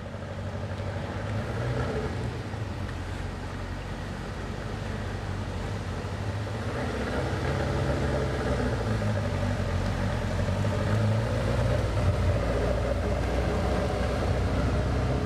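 Engine of a small open cycle-winged roadster running as the car pulls away and drives past over cobblestones, growing louder over the second half as it comes near.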